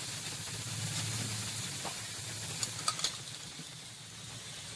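Steady sizzling hiss from a hot metal kuih bahulu (achu paniyaram) mould pan heating over a fire, with a few faint ticks in the middle.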